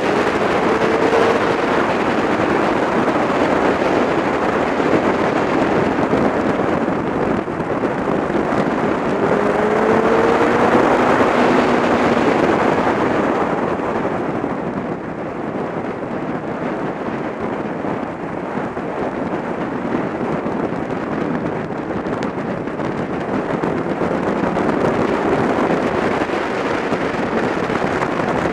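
Riding a BMW K1300GT touring motorcycle at speed: steady wind rush over the microphone with the bike's inline-four engine underneath, its pitch rising faintly under acceleration about ten seconds in. The rush eases and dulls for several seconds past the middle, then builds again.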